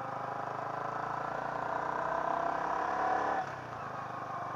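Yamaha R15 v3's single-cylinder engine pulling as the motorcycle rides on, its note rising a little and getting louder for about three seconds, then falling away suddenly.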